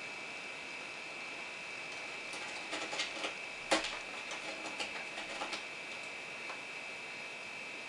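A Sphynx cat's claws scratching and tapping: a run of soft clicks and scrapes with one sharper knock a little before the middle. A steady high-pitched whine runs underneath.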